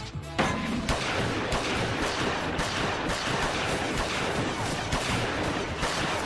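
Sustained volley of rapid gunfire from many pistols and rifles, the shots running together into a dense barrage that starts about half a second in.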